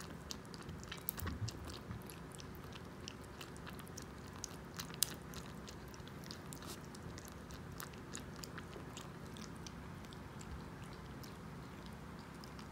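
Kitten lapping water from a plate: quick small wet clicks of the tongue, busy in the first half and more scattered later.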